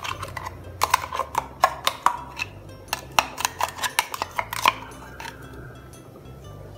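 Steel mixer-grinder jar knocked repeatedly against the rim of an aluminium cooking pot, a dozen or so sharp metallic clinks in an uneven rhythm, to shake a thick paste out of the jar.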